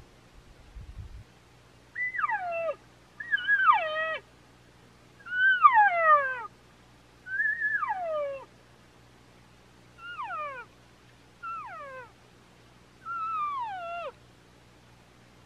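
Hand-blown elk call giving a string of seven cow elk mews, each a short whistle sliding down in pitch, one to two seconds apart. These are the cow sounds a hunter uses to draw in a bull.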